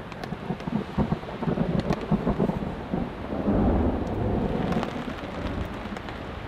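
Heavy rain drumming on a tarp shelter as a thunderstorm arrives, with thunder rumbling underneath; the rumble swells a few seconds in and eases near the end.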